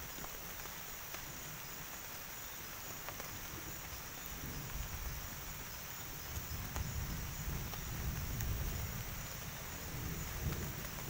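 Night forest ambience after rain: steady high-pitched insect chirring over a low rumble that swells about four seconds in and again near the end.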